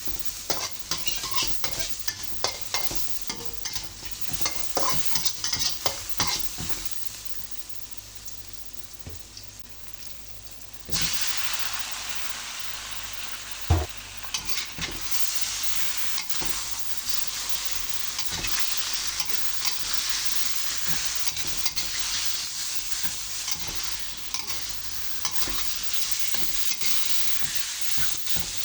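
A spatula clattering and scraping in a pan as food is stirred, then a quieter spell. About eleven seconds in, a loud, steady sizzle starts suddenly as food hits hot oil, with one sharp knock soon after.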